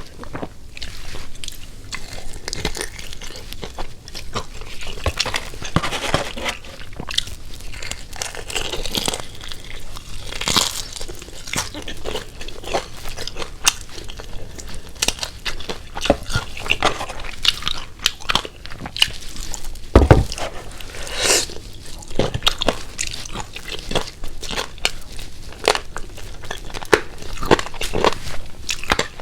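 Close-miked biting, crunching and chewing of crispy Jollibee Chickenjoy fried chicken, with many irregular crackles. A single low thud about twenty seconds in.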